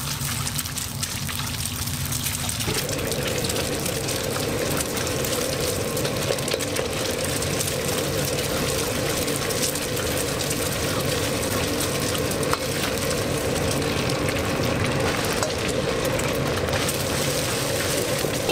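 Eggs frying in hot oil in a wok: a steady sizzle, with a metal ladle scraping and tapping against the wok as the eggs are broken up and stirred. A steady low hum joins about three seconds in.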